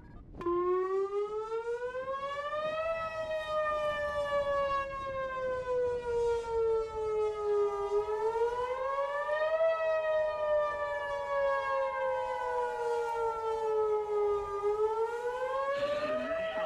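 Stacked-column outdoor warning siren sounding the wailing attack signal for a tornado warning: one tone slowly rising for about two and a half seconds, then falling for about five, over and over.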